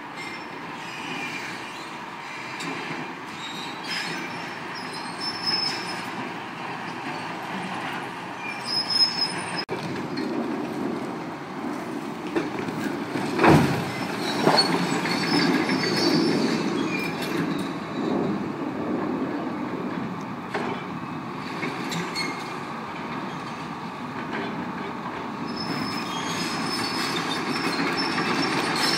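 A hydraulic demolition excavator runs steadily under load as its attachment works on a reinforced-concrete frame, with high metallic squeals on and off and several crashes of breaking concrete and debris. The loudest crash comes about halfway through.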